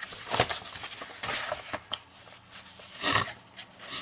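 Large sheets of glossy paper from a model kit's instruction booklet rustling and flapping as they are lifted and turned over, in about three short bursts.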